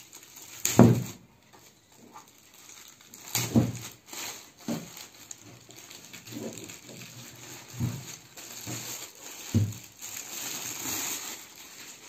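A plastic bag crinkling and rustling as it is pulled off a studio monitor speaker, with a few dull knocks of the speaker cabinet handled on the table.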